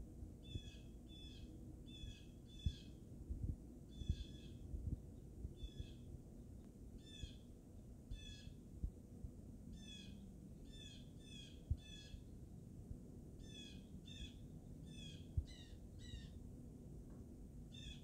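Blue jay calling: a long series of short, high calls, many coming in quick pairs or threes, over a low background rumble.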